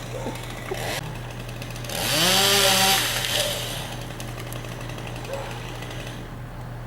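A chainsaw revs up about two seconds in and runs loud for about a second and a half before dying back. Under it an engine drones steadily.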